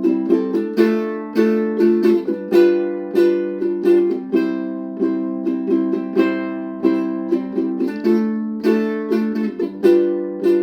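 Ukulele strumming chords in a steady rhythm, the instrumental introduction to a folk song, with the chords changing a couple of times.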